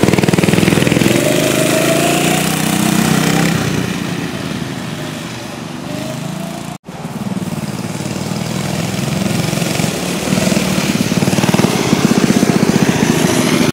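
Small single-cylinder mini bike engine running, its pitch rising and falling as it is revved. It gets quieter for a while in the middle, drops out for a moment about seven seconds in, then grows louder again.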